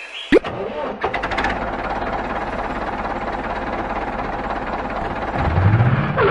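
Tractor engine running steadily after starting abruptly, its pitch rising near the end as it speeds up, as the toy tractor pulling a trolley drives in.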